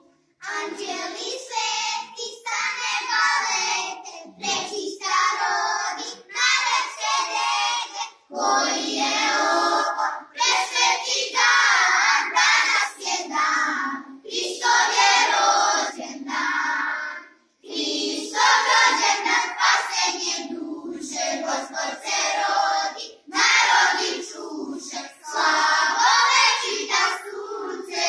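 A group of children singing a Christmas song together, in short phrases with brief pauses between them.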